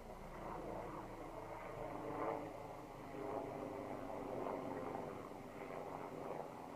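Strong gusty wind, a rushing noise that swells and eases unevenly, loudest a little over two seconds in and again from about three to five seconds in.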